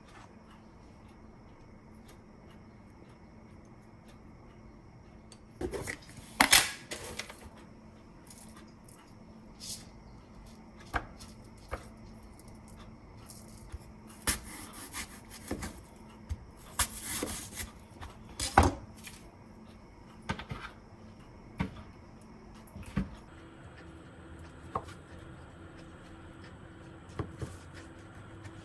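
Scattered knocks, taps and clatter of small objects being handled and set down on a hard surface, with a few louder clusters, over a faint steady room hum.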